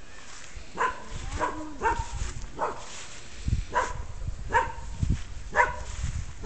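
A dog barking repeatedly, about seven short barks at uneven intervals.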